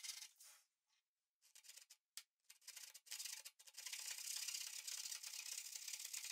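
Dry, scratchy rubbing of a metal awl point working against a pine board. It pauses briefly about a second in, then runs on steadily from about two and a half seconds.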